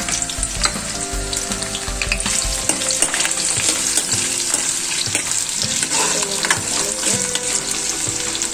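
Sliced onion and green chillies sizzling in hot oil in a kadhai, a dense crackling hiss with scattered pops, as a steel ladle stirs them through the oil.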